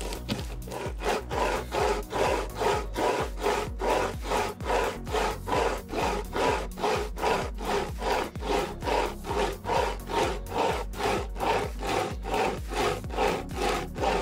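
Overmont pocket hand chainsaw, a toothed chain pulled back and forth by its two strap handles, cutting through a log: an even run of rasping saw strokes, about two a second.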